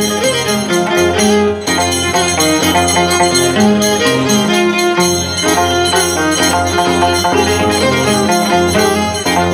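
Andean scissors-dance music: a violin playing a quick tune over a changing bass line, with the bright metallic clinking of the dancers' steel scissor blades (tijeras) struck in the hand.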